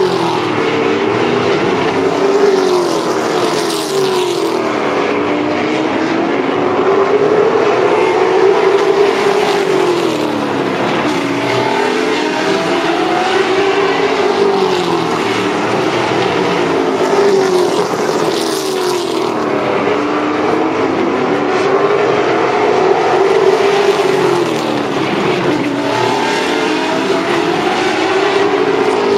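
Late model stock cars' V8 engines racing around the oval, several cars at once, their engine notes rising and falling over and over as they lap.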